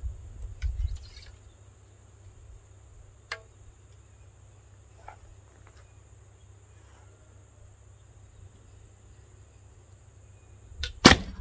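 Recurve bow being shot: a few light clicks as the arrow is handled and drawn, then near the end a loud, sharp crack of the string's release, with a smaller click just before it.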